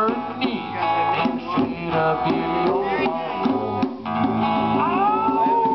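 Live acoustic band playing a country song: steady strummed acoustic guitar with djembe hand drums, and a man singing, holding one long note near the end.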